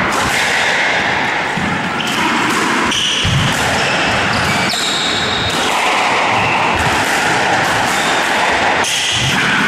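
Squash rally on a wooden court: the ball knocks off racquets and walls, and shoes squeak briefly on the floor, over a loud, steady noise in an echoing hall.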